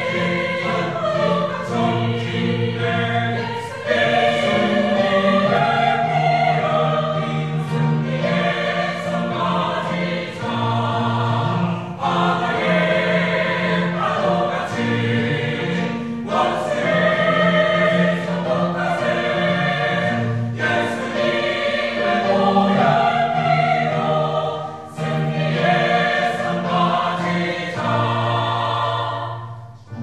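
Mixed church choir of men's and women's voices singing a hymn together, in sustained phrases with brief breaks between them.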